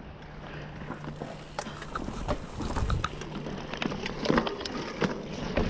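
Mountain bike riding over a rough dirt trail, with many short clicks and knocks as the bike rattles over rocks and a steady rolling noise underneath.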